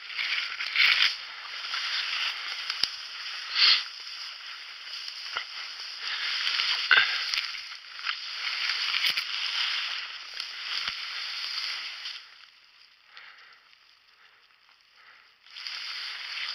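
Dry ferns and brush rustling and crackling as someone crawls through thick undergrowth on hands and knees, with occasional sharp clicks. The rustling stops for about three seconds near the end, then starts again.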